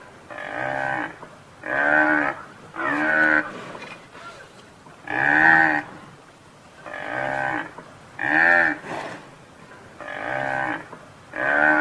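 Buffalo calling again and again with short, moo-like calls under a second each, about eight of them, coming in twos and threes with short pauses between.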